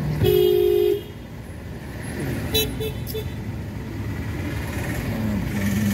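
A vehicle horn honks loudly for under a second near the start, over steady road traffic noise. A few short, higher toots follow about two and a half seconds in.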